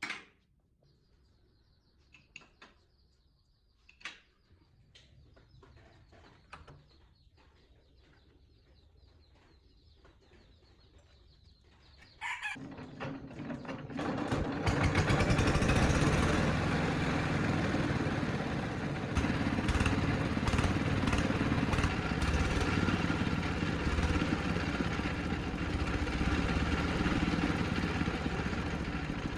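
Restored Hitachi three-cylinder air compressor starting up about twelve seconds in and then running steadily, after a few scattered clicks and knocks.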